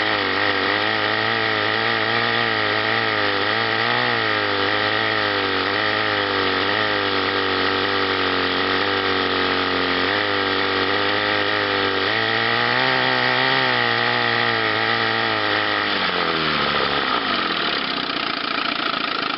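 Two-cylinder Chrysler two-stroke outboard motor running fast, its speed wavering as the top cylinder misfires, cutting in and out. About sixteen seconds in it drops to a lower speed. The misfire is an ignition fault that the owner suspects comes from a bad condenser.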